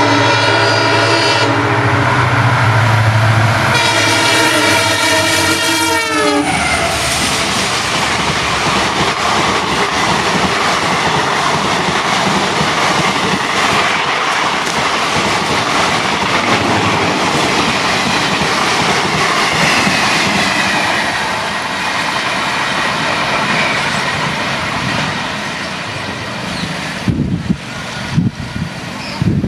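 EMD diesel locomotive sounding its multi-note horn with its engine humming under it; the horn chord drops in pitch as the locomotive passes and stops about six seconds in. The passing train then rolls by with a steady clatter of wheels over the rail joints, slowly easing off toward the end.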